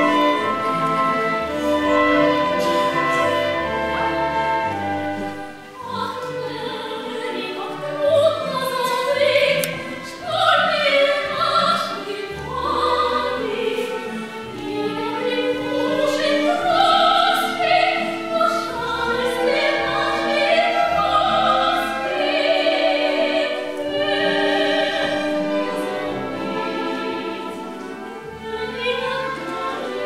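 Orchestra playing stage music; about eight seconds in a woman's operatic voice comes in over it, singing with a wide vibrato.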